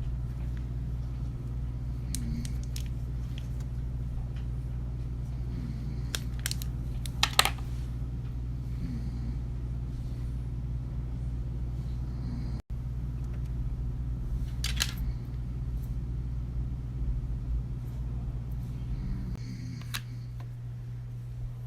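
A man snoring in his sleep: faint snores every three seconds or so over a steady low hum, with a few sharp clicks, the loudest about seven seconds in.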